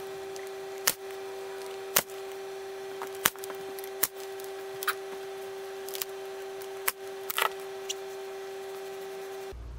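Pneumatic nail gun firing nails into a wooden threshold ramp: five loud sharp shots about a second apart, with a few lighter clicks and short hisses between them. A steady hum runs underneath and cuts off just before the end.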